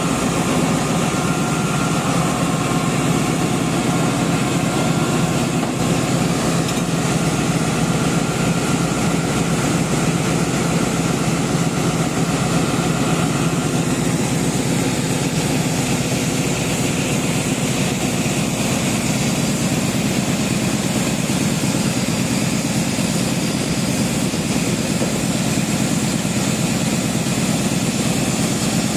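ZCU-class diesel-electric locomotive idling steadily, heard up close beside its engine compartment: a constant low engine hum with no change in speed.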